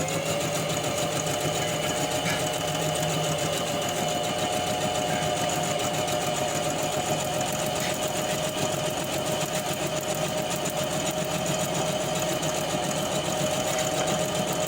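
Electric sewing machine with a foot pedal, running steadily and stitching without a pause. Its motor speeds up as the pedal is pressed at the start, then holds one even pitch.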